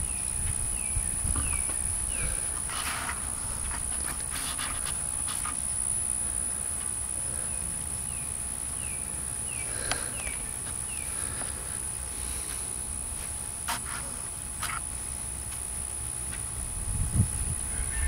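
Outdoor ambience: a steady high-pitched insect drone, with a bird's short falling chirps repeated in runs near the start and again midway, over a low rumble of wind on the microphone.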